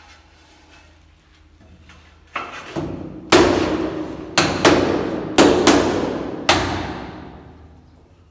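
A large ceramic wall tile being knocked into its bed of tile adhesive, seating it flat against the wall: a run of about eight sharp knocks over four seconds, each ringing on briefly, starting a couple of seconds in.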